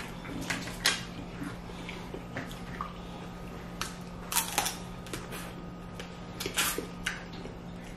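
Snow crab leg shells cracking and snapping as they are broken open and picked at, with wet sounds of handling and eating. Scattered sharp cracks, one about a second in, several close together a little past halfway, and another near the end.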